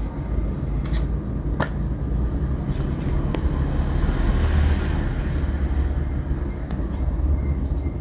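Steady low rumble of background traffic noise, with a few light clicks and taps about one, one and a half, three and a half and near seven seconds in.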